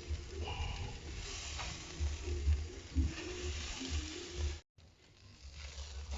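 Chicken pieces sizzling on a grill over a flaring charcoal braai fire, with music playing in the background. The sound cuts out abruptly about three quarters of the way through, then comes back fainter.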